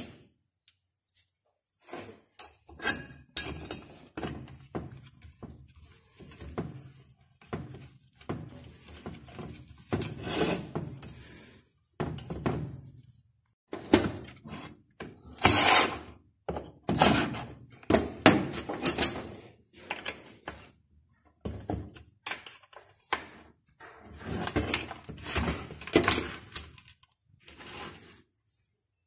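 Irregular knocks, clicks and short scrapes of hand tools and metal parts of a brushcutter's small two-stroke engine being handled and fitted, with a few louder thunks.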